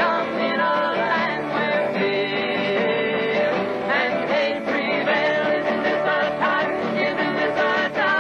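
Three voices singing together at microphones, with acoustic guitar. The song runs continuously and sounds like an old, lo-fi archival recording.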